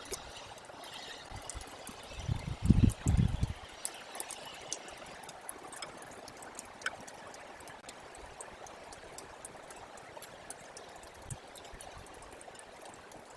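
Meltwater trickling and running steadily, with scattered faint ticks. A burst of low rumbling comes about two seconds in and lasts about a second and a half.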